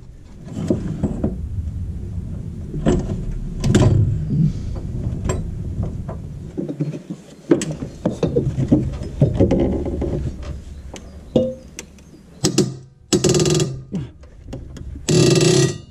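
Irregular metallic knocks and clanks of hand tools as a stuck blade fastener inside a machine is worked loose with a long lever, with a few longer grinding or straining stretches near the end.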